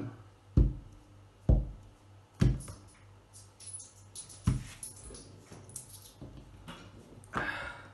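A fist knocking on a table through a mousepad: three thumps about a second apart, then a fourth about two seconds later. Light metallic clinks of coins come in between the later thumps.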